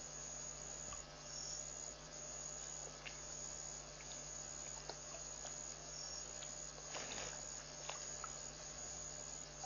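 Night insects, crickets, calling steadily over a faint hiss and a steady low hum, with a few faint clicks.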